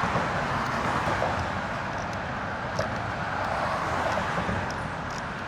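Road traffic noise: a steady rush of passing cars that slowly fades, with a few faint small clicks over it.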